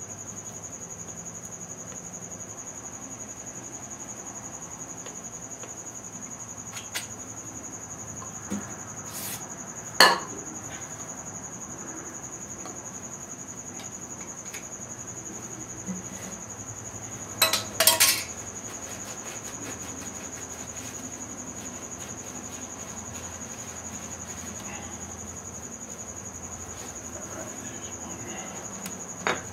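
Sparse metal clinks and knocks from engine main bearing caps and bearing shells being handled while the plastigauge is cleaned off them. The loudest knock comes about a third of the way in, with a quick cluster of clinks a little past the middle, all over a steady high-pitched whine.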